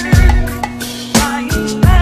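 Hip-hop music: a drum beat with deep kick drums with long low tails, three in the two seconds, sharper drum hits between them, a held bass note and a wavering melody over the top.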